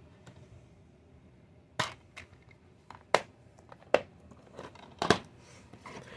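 Plastic DVD cases clicking and knocking as they are handled and set down on a wooden table: several sharp clicks spaced about a second apart.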